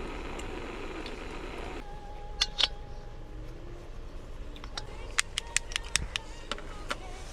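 A soft steady rushing that cuts off abruptly about two seconds in, followed by a run of sharp clicks and ticks, about a dozen, over a faint steady hum.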